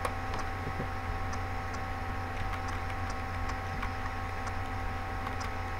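Steady electrical hum and hiss on a desktop recording microphone, with a few faint computer mouse clicks.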